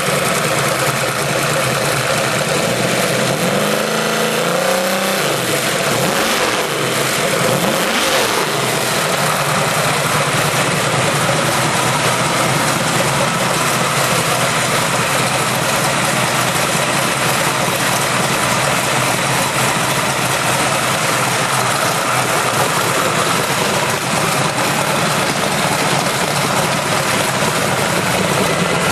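Ford 363 cubic-inch stroker small-block V8 with a roller cam, running on a test stand after its fresh build. The throttle is blipped about three times in the first nine seconds, each rev rising and falling. It then settles into a steady idle.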